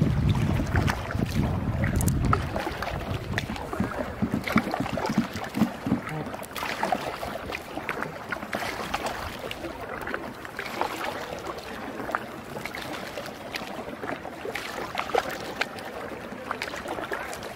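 Water splashing and lapping around a sea canoe as it moves across the bay, a haze of small splashes and drips. Wind rumbles on the microphone for the first two seconds or so.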